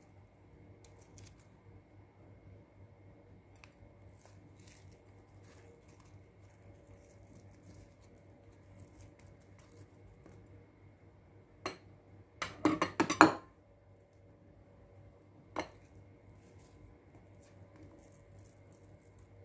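Hands laying raw onion rings on eggplant slices on a parchment-lined baking tray: faint rustles and soft ticks, with a brief burst of sharp clicks about twelve seconds in, a single click just before it and another a few seconds after.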